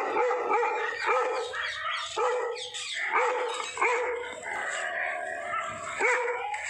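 Bakarwal dog, a Himalayan livestock-guardian breed, barking repeatedly in short, uneven runs: territorial alarm barking at a stranger.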